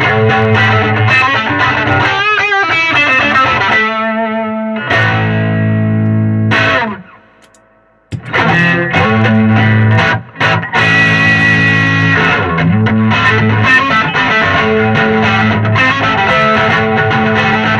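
Electric guitar on its neck pickup, volume knob at 3 and tone at 4, played through a germanium fuzz pedal. The riffs include wavering string bends, and a chord is left to ring and fade out between about five and seven seconds in. After a short silence the playing resumes through a second germanium fuzz pedal.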